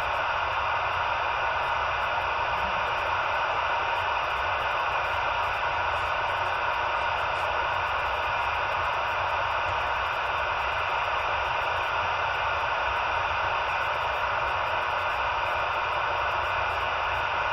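CB radio receiver hissing with steady static on an empty channel between transmissions, a faint hum beneath.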